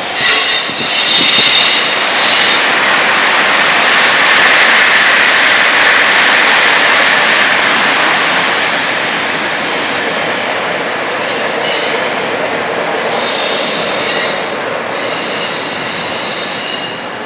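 Electric commuter train running through the station on curved track. Its steel wheels squeal in several high tones near the start and again from about eight seconds on, with a broad rushing rumble of the running train strongest in between.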